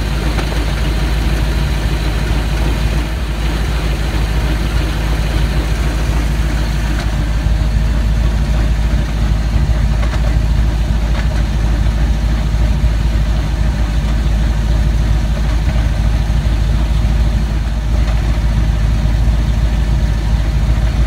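4.8 LS V8 running with the T-5 manual transmission in gear and the driveline turning with the rear end under load: a steady running sound carrying a rattling, grinding noise. The owner can't tell whether it comes from the T-5's gears and bearings or from the ring and pinion.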